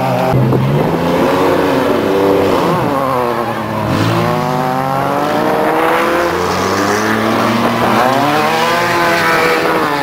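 Off-road race vehicles running past on a dirt course, with a desert buggy among them. Their engines rev, and the pitch climbs and falls several times as they accelerate and go by.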